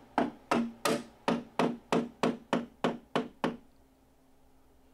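Hammer blows in a quick, even run of about a dozen strikes, roughly three a second, each ringing briefly, stopping about three and a half seconds in: knocking out the punch-out in the bottom of a steel breaker panel.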